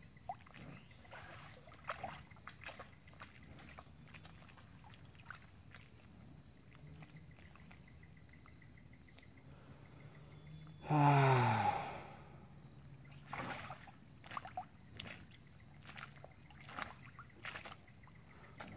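Quiet river water with scattered light splashes and drips. About halfway through, the cow standing in the river gives one low moo, about a second long and falling in pitch.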